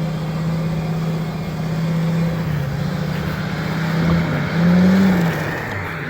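The V10 engine of a 2000 Ford Excursion with a Flowmaster exhaust, running steadily as it drives in snow. It revs up briefly and settles back about five seconds in.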